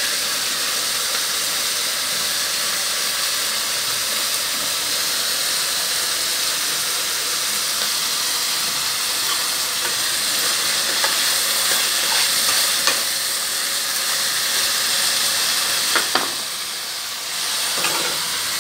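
Mixed vegetables sizzling in hot oil in a stainless steel pot as they are stirred, a steady hiss. A few sharp knocks near the end.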